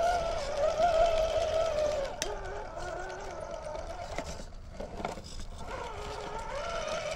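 Whine of the RC rock crawler's Hobbywing Fusion SE 1800KV brushless motor, wavering in pitch with the throttle as the truck climbs rock. About two seconds in it turns quieter and lower, coming and going, with a sharp click.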